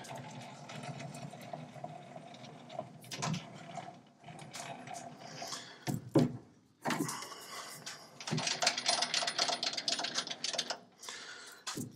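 Hand adjustments on a metal lathe with the spindle stopped: scattered metallic clicks and knocks as the tool post is brought up and clamped, with a rapid rattle of ticks for a couple of seconds past the middle, over a faint steady hum.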